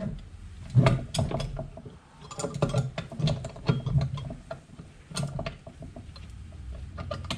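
Irregular metallic clinks and clunks as the gear shafts and shift forks of a Honda B-series manual transmission are worked by hand into the transmission case.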